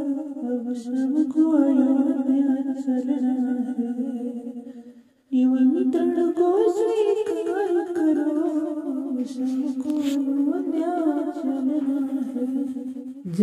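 Devotional song music with a wordless melody carried by a humming voice. It fades out to a brief silence about five seconds in, then starts again.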